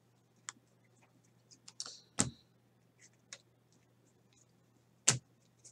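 Handling a stack of trading cards: scattered light clicks and slides of card on card, with sharper knocks about two seconds in and again near the end.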